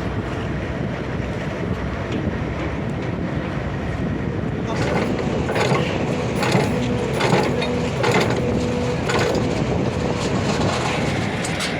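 Heavy machinery running steadily, with a series of sharp metal clanks and knocks through the middle.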